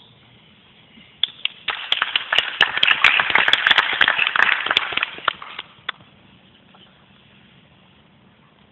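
Audience applauding: scattered claps start about a second in, swell into steady clapping, then die away after about six seconds.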